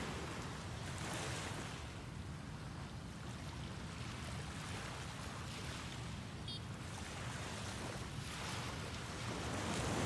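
Small waves breaking and washing up a sandy beach, the hiss swelling and easing every few seconds, loudest near the end.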